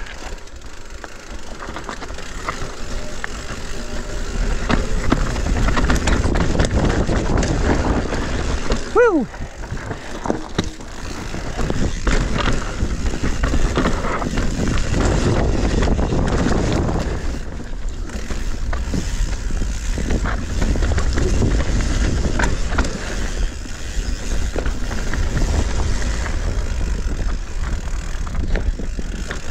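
Mountain bike riding down a rough trail over rocks and roots: tyres rattling and knocking with the bike clattering. Wind rushes over the microphone.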